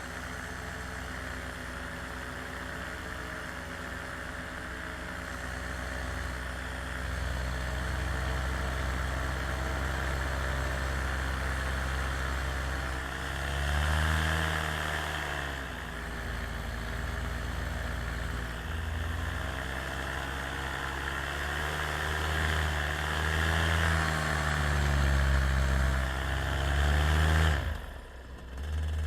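Small aircraft engine running in flight, its pitch rising and falling several times with throttle changes over a steady rush of noise, then dropping away sharply near the end.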